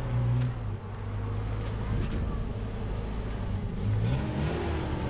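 A motor vehicle's engine running steadily, its pitch rising briefly about four seconds in as it speeds up.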